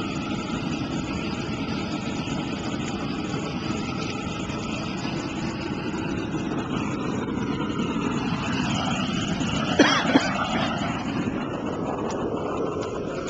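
Steady roar of a propane burner flame, with two sharp pops close together about ten seconds in.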